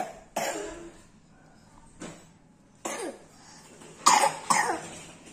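Young child coughing, four short coughs: one near the start, one about three seconds in, and two close together about four seconds in.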